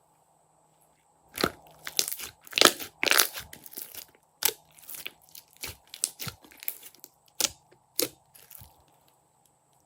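Slime being handled and squeezed, giving an irregular run of sharp crunches and crackling clicks that starts about a second in, is loudest a couple of seconds in, and dies away near the end.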